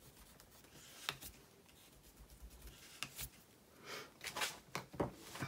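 Faint handling sounds of a white cardstock pillow box being pressed and moved on a cutting mat: a couple of soft isolated clicks, then a quick run of paper rustles and light taps near the end.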